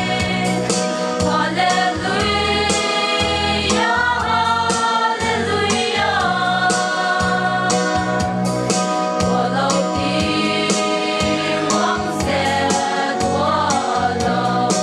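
Mixed choir of young women and men singing together, with a steady beat underneath.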